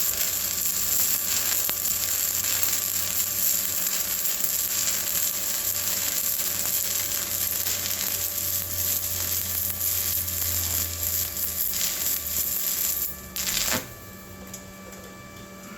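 Stick-welding arc on a 7018 electrode, crackling steadily as a vertical-up pass is run. The arc stops about two seconds before the end, with one short crackle just after.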